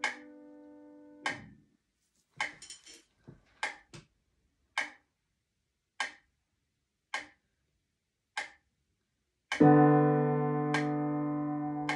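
Upright piano played slowly over a metronome ticking steadily at about 50 beats a minute. A held chord fades away in the first second and a half, a few soft notes follow, and then a loud chord is struck about ten seconds in and left to ring.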